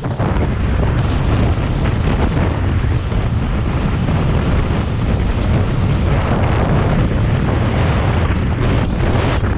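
Wind buffeting the microphone of a camera on a road bike descending at speed: a loud, steady, low rushing rumble.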